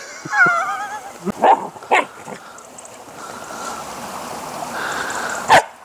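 Belgian Malinois giving a brief wavering, high-pitched whine near the start, followed by a few sharp knocks and a rising rustling hiss, with one loud sharp knock near the end.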